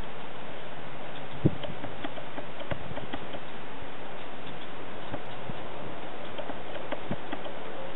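Hoofbeats of a horse moving over a grass field: faint, irregular thuds and ticks over a steady hiss, with one sharper thump about a second and a half in.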